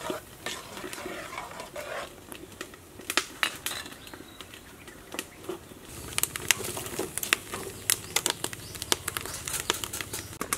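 Split firewood burning under a cooking pot, crackling with sharp irregular pops and snaps. The crackling grows denser from about six seconds in, over a low steady rumble of the flames.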